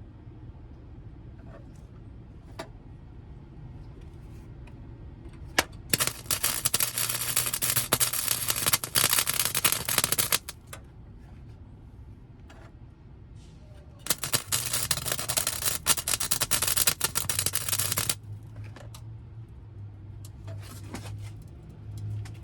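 Welding arc crackling on a car's steel floor pan in two runs of about four seconds each, starting about six and fourteen seconds in, with a few light clicks and taps between.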